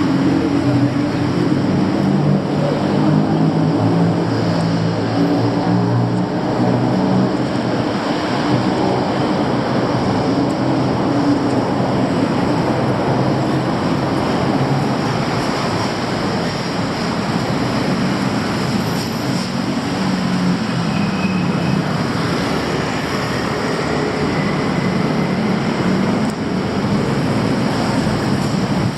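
Busy road traffic: the steady roar of passing vehicles, with engine drones rising and falling as vehicles go by, heaviest in the first several seconds and again about two-thirds of the way through.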